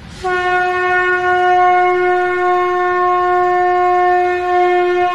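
A conch shell (shankh) blown in one long, steady note, starting just after the beginning and held without a break.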